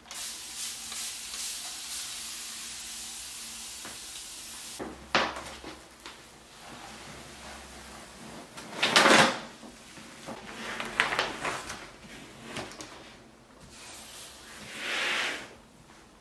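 Sheet of vinyl contact paper rustling and crinkling as it is handled and smoothed onto a countertop, in several separate bursts, the loudest about nine seconds in.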